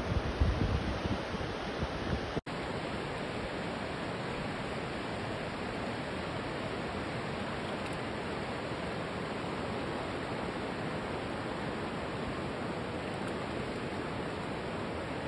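River water rushing steadily over shallow rocky rapids. For the first two seconds a gusty low rumble rides on top; then the sound drops out for an instant and comes back as an even rushing.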